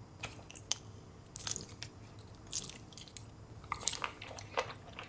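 Close-up mouth sounds of someone chewing sour edible slime candy: irregular small clicks and squishes at a low level.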